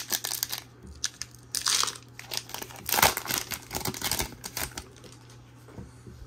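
Foil wrapper of a Disney Lorcana trading-card booster pack being torn open and peeled back. It crinkles and crackles irregularly, loudest about one and a half seconds and three seconds in, and dies down near the end as the cards come out.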